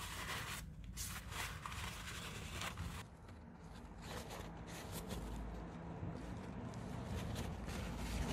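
Paper towel rustling and rubbing as leftover engine oil is wiped from the oil filter housing and cover, with many short scrapes and handling noises. The sound grows quieter and duller after about three seconds.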